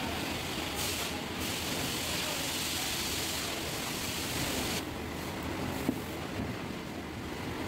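Steady rushing hiss of workshop background noise that cuts off suddenly about five seconds in, followed by a single short knock.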